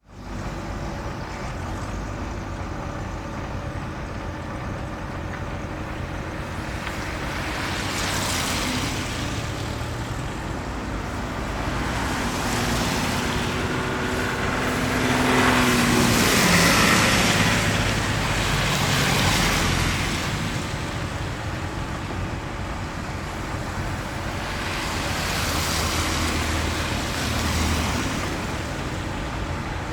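Road traffic: a steady rumble of car engines and tyre noise, with vehicles passing one after another, the loudest pass about 16 seconds in with a falling pitch.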